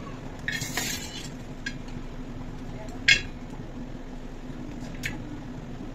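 Kitchen utensils and dishes clinking: a quick flurry of clinks near the start, then a few single clinks at intervals, the loudest about three seconds in. A steady low hum runs underneath.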